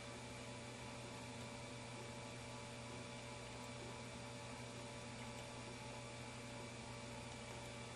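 Steady electrical hum over a faint even hiss: unchanging room tone in an empty restroom.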